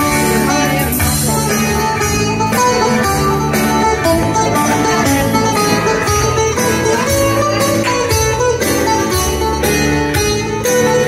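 Music led by plucked strings, with a steady beat.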